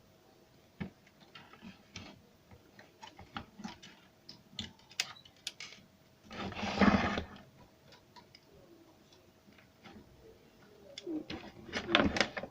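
Irregular small clicks and taps of hands working on small mechanical parts, with a louder rustling scrape about halfway that lasts about a second and a quick run of louder clicks near the end.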